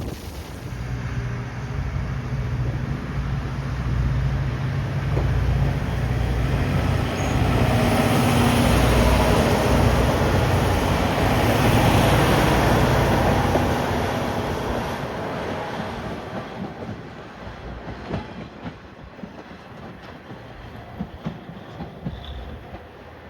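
JR Shikoku KiHa 40-series diesel railcar passing by, its engine and wheels on the rails growing louder, loudest about halfway through, then fading away.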